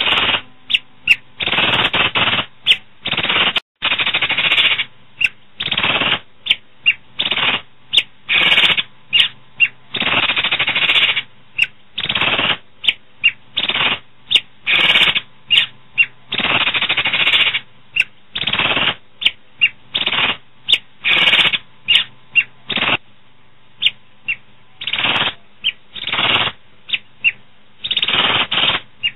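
Asian pied starling giving loud, harsh, rattling chatter: a long run of scratchy calls of uneven length, from quick clicks to drawn-out bursts of a second or more, with short gaps between.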